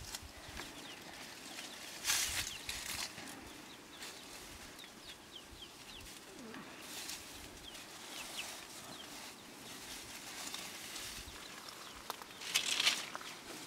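Dry straw and grass rustling in bursts as dung is gathered by hand into a bamboo basket, once about two seconds in and again near the end. Faint short bird chirps come in between.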